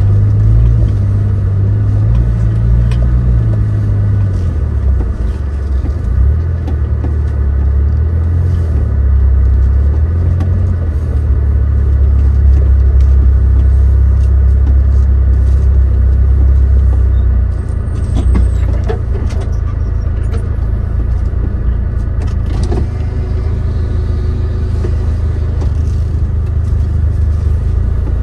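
Suzuki Jimny JB23's small three-cylinder turbo engine running at low speed off-road. Its low rumble rises and falls in pitch over the first several seconds, then settles lower and steadier. A few knocks and clicks come between about two-thirds and four-fifths of the way through.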